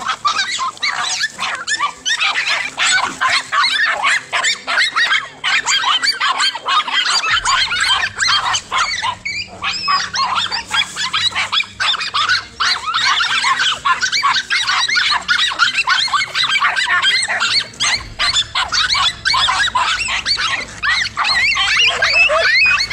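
A pack of dogs yelping and barking almost without a break in a frenzied fight, many short high-pitched cries overlapping.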